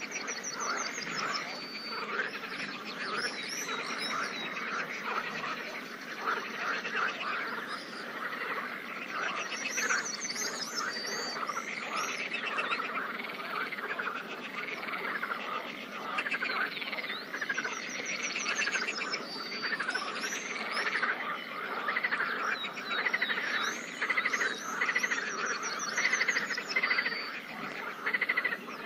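Pond frog chorus: many frogs croaking together in a dense, continuous stream of short pulsed calls, with a higher trill coming back several times over it.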